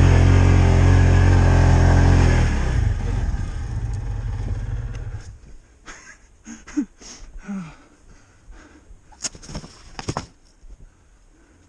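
A vehicle engine running hard, then dropping to a lower hum about two and a half seconds in and shutting off about five seconds in. A few sharp knocks and clicks follow.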